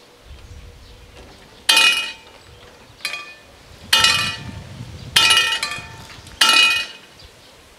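Level-crossing warning bell striking five times, about one stroke every second and a quarter, each stroke ringing on and fading. A low rumble runs beneath the strokes.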